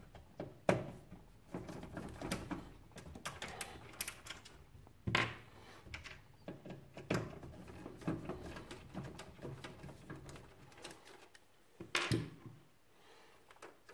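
Screwdriver working a screw out of a desktop PC case's metal expansion-slot bracket: irregular small clicks, scrapes and metal knocks, with a few sharper knocks about a second in, around five seconds in and near the end.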